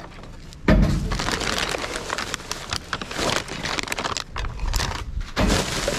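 Rubbish being rummaged through by hand in a wheelie bin: plastic bags and wrappers crinkling, with empty food cans knocking and clicking together. It starts about a second in and swells again near the end.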